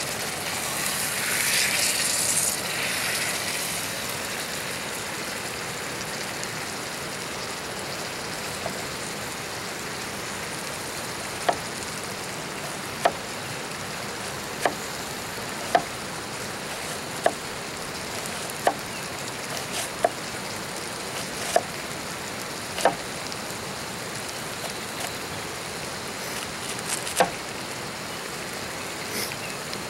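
Steak sizzling steadily in a cast-iron skillet on a gas canister camp stove, louder for the first few seconds as it is turned over. From about eleven seconds in, a knife cuts an onion on a plastic cutting board: a sharp knock every second or so.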